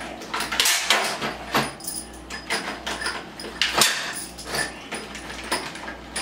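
Plastic hardware bag crinkling and rustling in the hands as assembly screws are picked out of it, with small irregular clicks and clinks of the metal screws.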